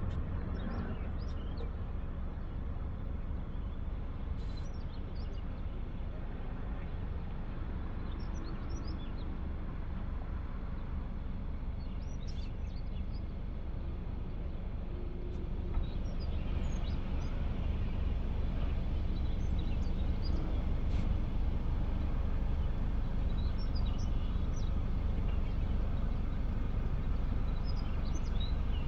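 Seashore ambience: a steady low rumble, with scattered short, high bird chirps. It grows somewhat louder a little past halfway.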